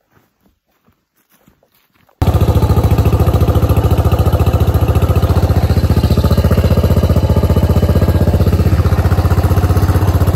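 After two seconds of faint ticks, a KTM dirt bike's engine cuts in suddenly and runs loud and steady as the bike is ridden along a trail.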